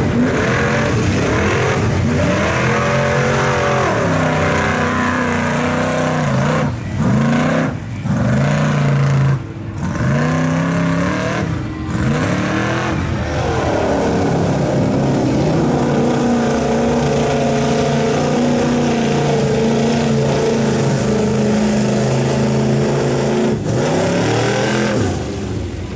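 Ford Ranger mega truck's small-block V8 engine revving hard through mud: its pitch repeatedly climbs and falls, then holds high and steady under load, with a few abrupt breaks in the sound.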